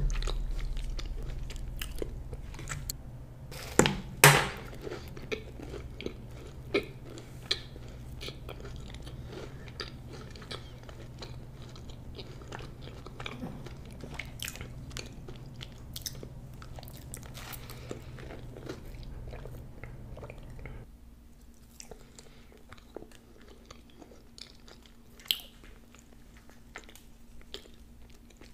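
A person eating: chewing and biting with mouth clicks and occasional crunches, the sharpest pair of bites about four seconds in and another near the end.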